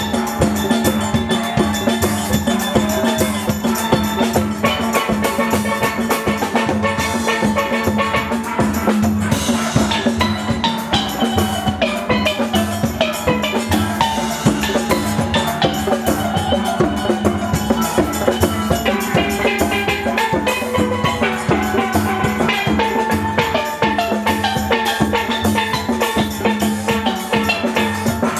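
A full steel band playing live: many steel pans struck with sticks, ringing out melody and chords, over a steady, busy drum and percussion beat.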